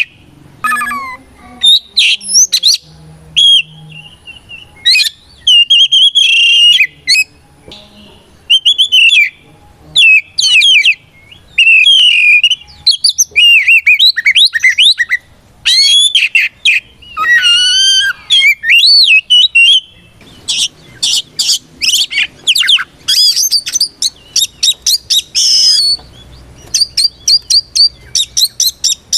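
Oriental magpie-robin (kacer) singing loudly: varied whistled phrases with sliding and warbling notes, broken by short pauses. About two-thirds of the way through it breaks into a long run of fast, short repeated notes.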